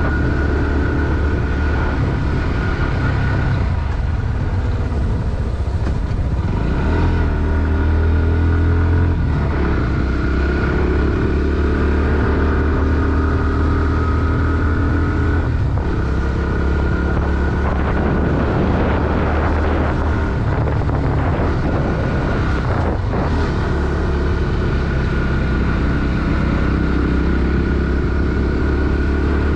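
Bajaj Pulsar NS160's single-cylinder four-stroke engine running under load while riding. The revs climb and fall repeatedly, with a few brief dips, one about six seconds in, another near the middle and one about two-thirds of the way through.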